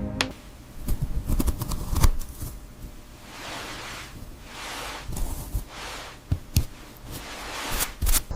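Hands working on a handmade model: scattered sharp clicks and knocks, the loudest about two seconds in, then several rasping strokes about a second long each.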